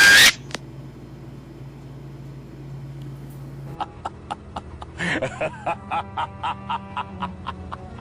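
A short loud burst, then music: a low held note, joined about four seconds in by a run of short, evenly spaced notes at about three a second that get louder near the middle.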